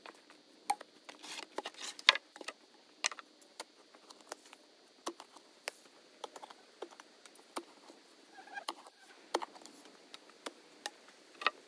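Irregular sharp clicks and knocks, several a second at times, the loudest about two seconds in.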